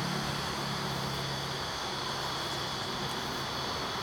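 A guard honeybee (Carniolan) buzzing in flight around the beekeeper, a low steady drone that fades out near the end, over a steady background hiss.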